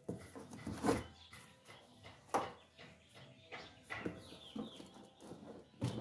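Cardboard welder box being slit open with a machete: a few sharp scrapes and taps of the blade on the cardboard and tape, the strongest about a second in, again near two and a half seconds, and just before the end.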